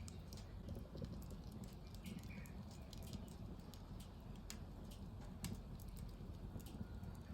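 Wood fire in a fireplace crackling, with irregular sharp pops and snaps over a low steady rumble; one louder snap comes about five and a half seconds in.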